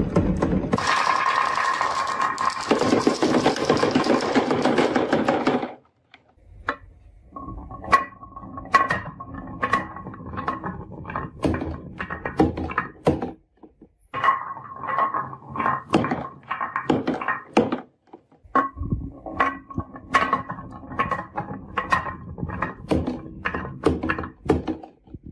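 Glass marbles rolling down a wavy wooden groove track, clattering against the wooden walls and each other. A dense continuous rattle of many marbles runs for about the first six seconds. After a short lull come separate clacks and knocks with a ringing glassy ping.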